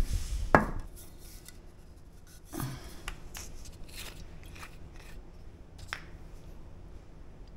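Kitchen handling sounds: a sharp knock about half a second in, another knock a couple of seconds later, then light clicks as the screw cap of a plastic vinegar bottle is twisted off and set down on the counter.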